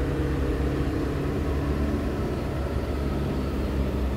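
An engine running steadily, a low hum that does not change.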